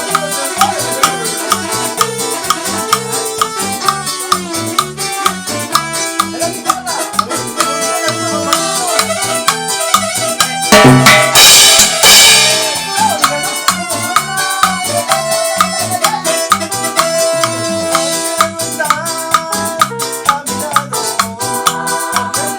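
Cumbia music with a steady percussion beat under melody lines, with a loud crash-like burst about halfway through that lasts a second or two.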